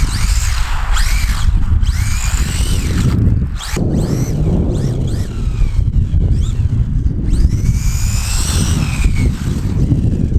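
WLToys A959-B RC buggy's electric motor whining as it speeds up and slows down, its pitch rising and falling several times. Heavy wind rumble on the microphone.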